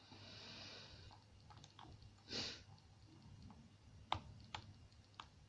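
Faint, sparse clicks of a lock pick and tension wrench working the pins of a pin-tumbler challenge lock, with a sharper click about four seconds in and two more soon after. A short hissing rush, like a breath, comes near the middle.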